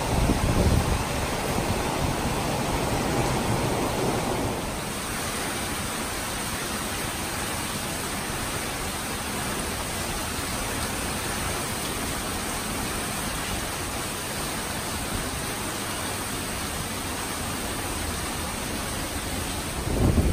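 Tropical storm rain and wind as a steady hiss, louder with a low rumble for the first four or five seconds, then settling to an even hiss.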